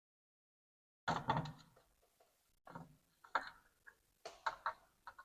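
Light, irregular clicks and taps of small hand tools working on a circuit board, in a few short clusters after about a second of silence.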